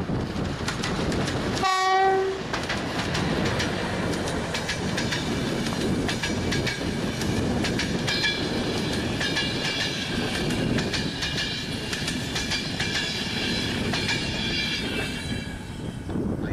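PKP Intercity EP09 electric locomotive giving one short horn blast about two seconds in as it hauls a passenger train past. The coaches' wheels then clatter over the rail joints, and from about halfway a high squealing ring joins the wheel noise before it fades near the end.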